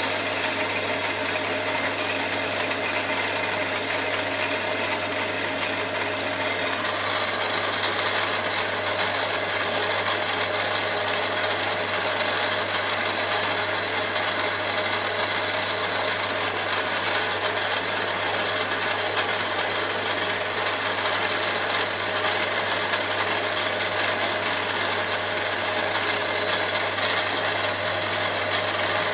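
Milling machine running steadily, its spindle turning a drill bit that bores the bolt-hole pattern in a solid aluminium block. A high whine drops out about seven seconds in.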